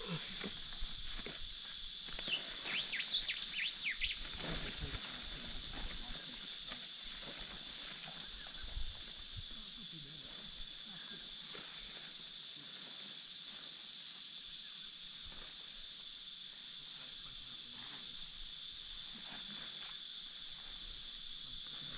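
Steady, high-pitched insect chorus droning without a break, with a few short chirps about two to four seconds in and faint rustles and knocks.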